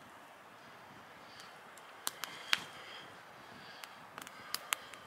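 Wood campfire burning with a steady hiss and scattered sharp crackles and pops, the loudest about halfway through and a quick run of them near the end.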